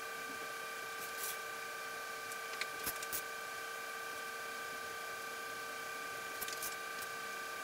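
Steady background hum made of several even tones, with a few light clicks and taps about a second in, around three seconds in and near the end as flat template and sheet-metal pieces are handled on the workbench.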